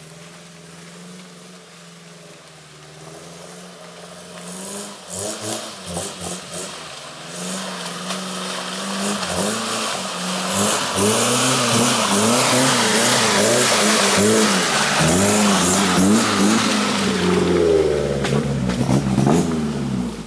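Four-wheel-drive SUV engine revving hard again and again, the revs swinging up and down as the vehicle tries to pull out of deep mud it has bogged down in. A hiss of spinning tyres and flung mud builds from a few seconds in and is loudest through the second half.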